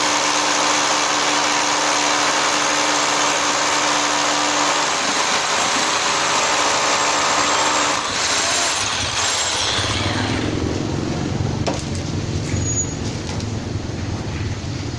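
National EZ6813 29.4 V cordless hammer drill, set to high speed, hammer-drilling a 10 mm bit into concrete with a loud, steady grinding rattle. It stops about nine to ten seconds in and is followed by a lower, quieter rumble.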